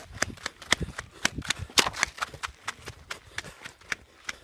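Quick, regular footsteps on a dirt path as a person hurries along, slowing to a walk about halfway through.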